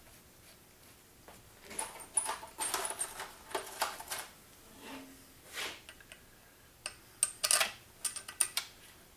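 Loose metal valve-body bolts clinking and rattling as they are picked from a parts tray and started by hand into a Turbo 400 transmission's valve body. Small sharp clicks come in two spells a few seconds apart, some with a brief metallic ring.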